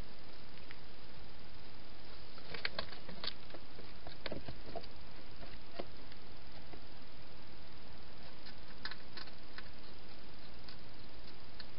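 A wild hedgehog eating at a feeding box: scattered crisp clicks and crunches, bunched a few seconds in and again later, over a steady hiss.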